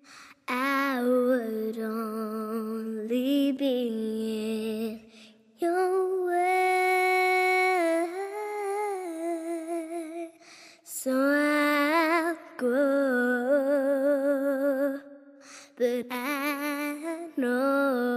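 A woman singing long held notes with vibrato, in slow phrases broken by short pauses.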